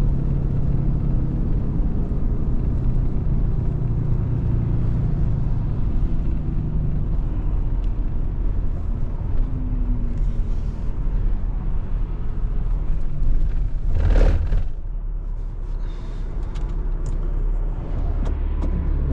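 Tow truck's engine running with road rumble heard while driving. About fourteen seconds in there is a short, loud hiss, after which the running sound settles a little quieter.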